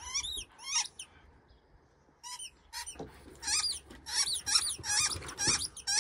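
Dog giving quick runs of high-pitched whining yelps, each rising then falling in pitch, during rough play-fighting. A few come first, then a pause of about a second, then a denser run.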